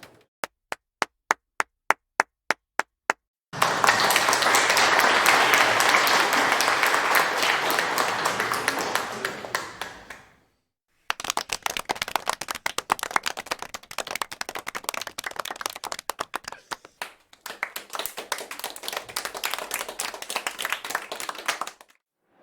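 A run of about a dozen single handclaps, quickening. Then a crowd bursts into dense applause that fades out about ten seconds in, followed after a short pause by a second round of sparser clapping from a smaller group that stops just before the end.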